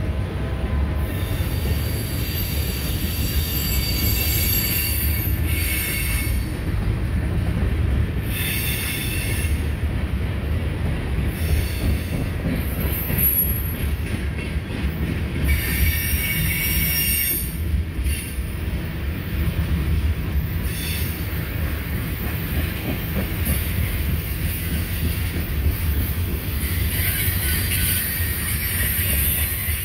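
Freight train cars rolling past close by: a steady heavy rumble of wheels on rail, with a high-pitched wheel squeal that comes and goes several times.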